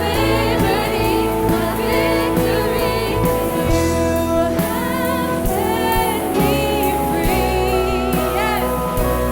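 Live worship band playing, with bass and sustained chords, while singers sing a song; the words are not made out.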